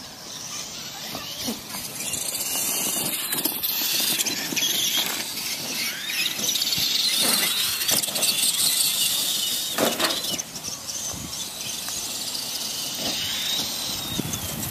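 Electric radio-controlled Clod Buster monster trucks racing on grass, their motors and gearboxes giving a high-pitched whine that rises and falls with the throttle. A few short knocks are mixed in as the trucks bounce and land.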